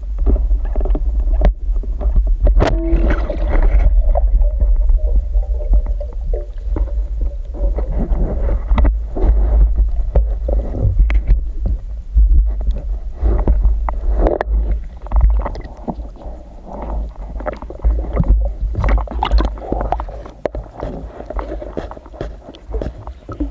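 Muffled water noise with a heavy low rumble and many scattered knocks and clicks, like water moving around a camera in the water. A faint steady hum runs for a few seconds near the start.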